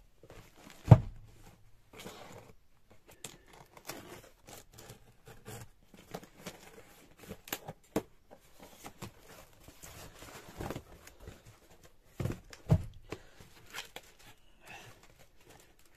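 Hands opening a cardboard shipping box: packing tape pulled and torn off, cardboard flaps and packaging rustling and scraping in irregular bursts. A heavy thump comes about a second in, and a couple of sharper knocks come near the end.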